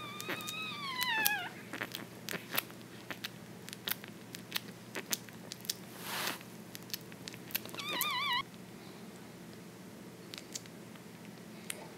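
One-week-old French Bulldog puppy whimpering in its sleep while dreaming. A high squeal falls in pitch in the first second or so, and a short wavering squeak comes about eight seconds in, with many small clicks and a brief breathy puff about six seconds in.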